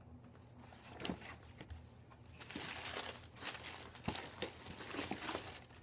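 A sneaker box being opened by hand, its paper packing crinkling and rustling, busiest in the second half, with a couple of sharp knocks.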